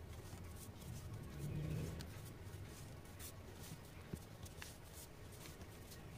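Faint handling sounds of paper crafting: light rustling and scraping of paper, with a soft tap about four seconds in.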